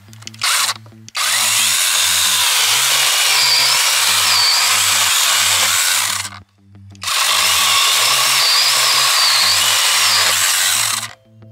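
Cordless brushless mini chainsaw with an 8-inch bar running in two long bursts of about five and four seconds, cutting wood. A brief blip of the motor comes under a second in.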